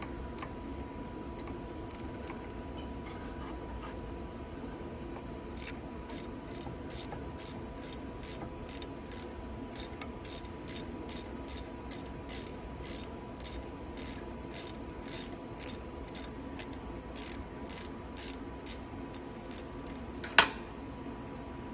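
Metal tool work on a machine part with an Allen key: short, sharp metallic clicks, about two a second for most of the stretch, over a steady hum. One loud knock near the end.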